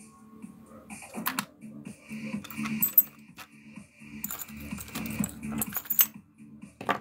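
Small metal tools and parts clicking and rattling as they are picked up and set down on a rubber work mat, with a few sharp clicks. Background music with a steady beat runs underneath.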